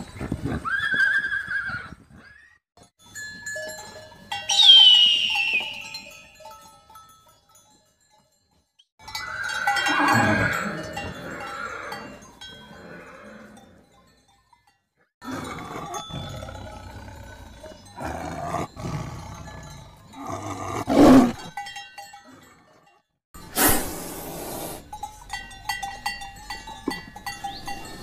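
A run of separate animal calls with short silences between them, horse whinnies among them in the first half. One loud call falls in pitch about four seconds in, and another long wavering call comes around ten seconds in.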